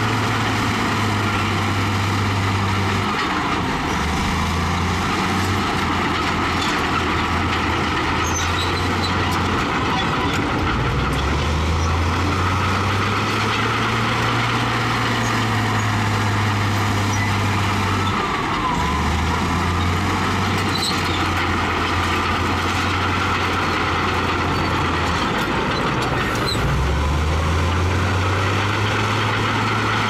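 Bulldozer's diesel engine running under load, its pitch stepping up and down every several seconds as it works.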